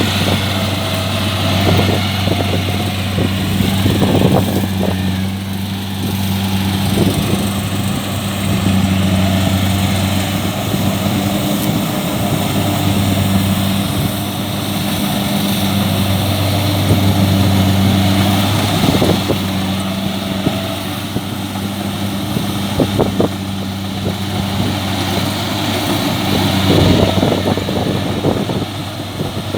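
Kubota DC-70 combine harvester's diesel engine running steadily, its drone swelling and easing at times, with scattered knocks and rattles.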